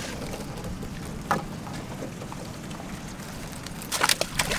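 Steady wind and water noise on an open boat, with one sharp knock about a second in. Near the end comes a quick burst of rattling as the wire crab trap is shaken to dump the old bait fish overboard.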